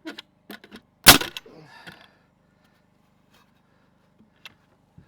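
A single loud, sharp crack of wood about a second in, with a brief rattle after it and a few light knocks and clicks around it: wooden framing being struck or knocked while the fascia board is fitted.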